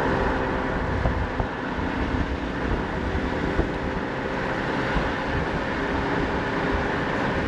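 Steady rush of wind and road noise through an open rear car window as the car drives along at speed.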